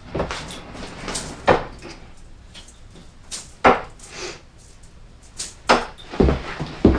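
Darts thudding into a dartboard, several sharp hits one to two seconds apart.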